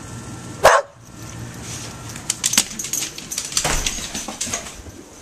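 A dog gives one short bark that is cut off abruptly. After that come scattered clicks and rustling from the camera being carried about.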